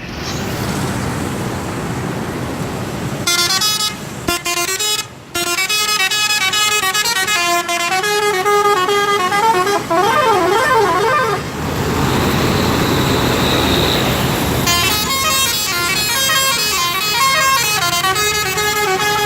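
Indonesian tour bus 'telolet' musical air horn playing quick melodic runs of stepped notes, with a warbling passage. The horn breaks off for about three seconds, leaving steady street and engine noise, then plays again through the last few seconds.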